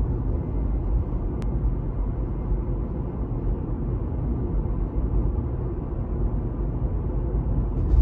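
Cabin sound of a 2018 Tesla Model 3 driving at about 35 mph: a steady low rumble of road and tyre noise, with a faint steady high-pitched whining whistle running above it. A single sharp click comes about a second and a half in.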